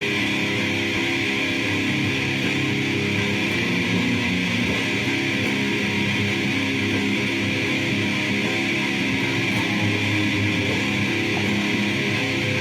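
Sludge-style noise music: heavily distorted electric guitar held as a dense, steady drone with no breaks.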